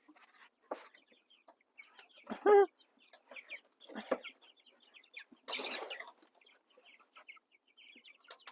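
Meat chickens clucking and calling in short scattered bursts, with one louder call about two and a half seconds in. There is a brief noisy rustle about halfway through.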